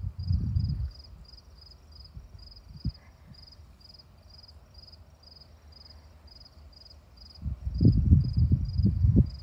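A cricket chirping steadily, about two to three short chirps a second. Loud low rumbling bumps on the microphone come in the first second and again over the last two seconds.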